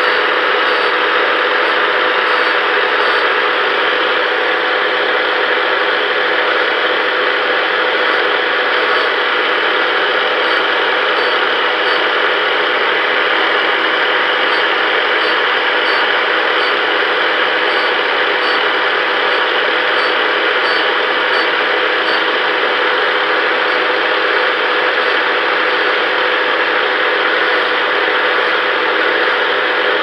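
Harbor Freight angle grinder running steadily with an abrasive disc pressed against the edge of an aluminum wheel rim, sanding out gouges. A constant motor tone runs under the hiss of the disc on the metal.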